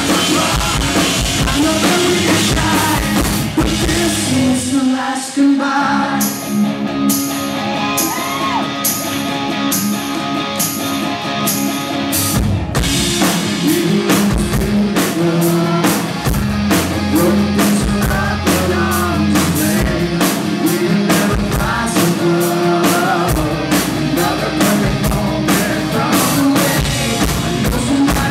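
Live rock band playing: electric guitars, bass, drums and a male lead voice singing. About five seconds in the drums and low end drop back for a sparser stretch, and the full band with driving drums comes back in at about twelve seconds.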